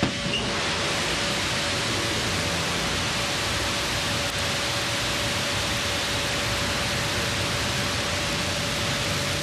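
New Shepard rocket's single BE-3 engine igniting at liftoff, a dense, steady rushing noise that starts suddenly and holds at full strength while the rocket climbs off the pad.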